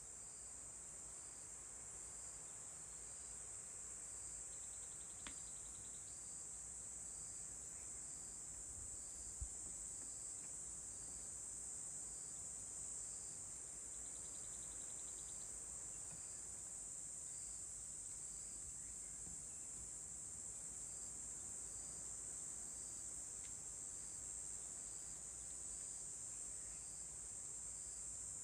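Steady, high-pitched chorus of insects, with a fainter pulse repeating roughly once a second beneath it. A single soft click about five seconds in and a brief low thump about nine seconds in.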